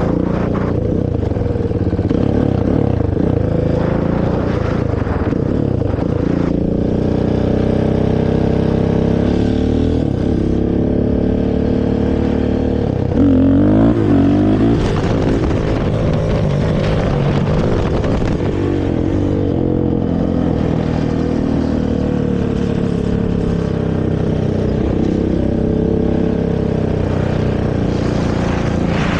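Honda TRX450R quad's single-cylinder four-stroke engine through its stock exhaust, running under way with its pitch rising and falling as the rider works the throttle. About halfway through there is a louder burst of quick revving.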